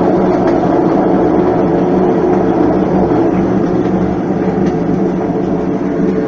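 Mabe ID System 4.0 top-load washing machine in its spin cycle, its transmission running with a loud, steady mechanical rumble and hum. The noise comes from the transmission's damaged bearings, which water has reached past worn seals.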